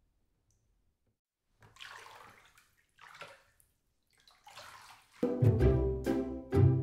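Near silence, then a few faint, short rustling handling noises, then upbeat background music starts loudly about five seconds in.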